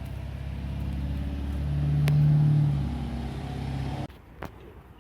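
Motor vehicle engine running close by, growing louder to a peak about two seconds in and easing off, then cutting off abruptly about four seconds in.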